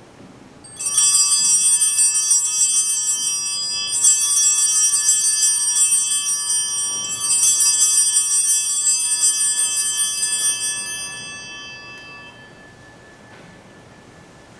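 Altar bells rung three times at the elevation of the consecrated host, a few seconds apart: a cluster of small bells ringing high and bright, each ringing running into the next, then fading away over the last few seconds.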